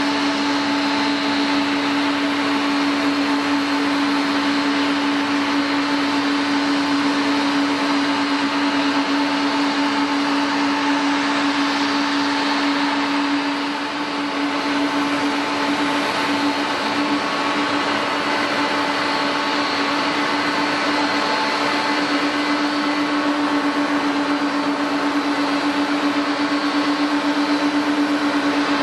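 Jet airliner's turbine engines running steadily at low power: a constant hum with a high whine over a broad rush of noise, dipping briefly about halfway through.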